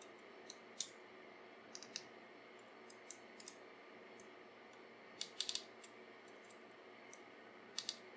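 Faint, scattered small clicks of a hex key turning the scope-ring screws a half turn at a time, with a quick cluster of clicks about five seconds in.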